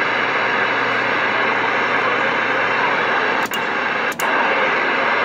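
Galaxy CB radio's speaker giving steady open-channel static hiss with faint steady tones mixed in. Two short clicks with brief dropouts come about three and a half and four seconds in.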